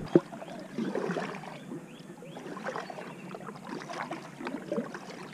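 Water lapping and splashing against a plastic fishing kayak's hull as it moves slowly along, with scattered light knocks and creaks.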